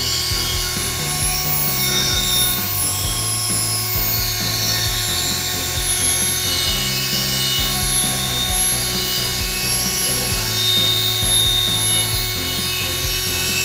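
Electric drill spinning a polishing pad loaded with compound against a plastic headlight lens: a steady motor whine whose pitch steps up and down a few times as the speed changes.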